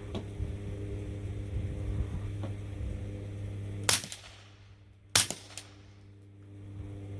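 Two suppressed 9mm shots from a CZ Scorpion Evo with a Liberty Centurion 9 suppressor, about a second and a quarter apart, each a sharp crack with a short fading tail, over a steady low hum.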